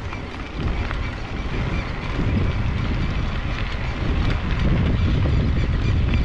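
Wind buffeting the microphone of a camera riding on a moving bicycle, a loud, gusting rumble, with a few faint ticks and rattles from the bike.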